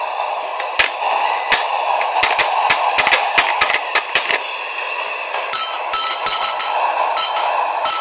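Sharp, irregular clicks and knocks over a steady noise, followed in the last few seconds by clusters of metallic clinking and rattling with a ringing note.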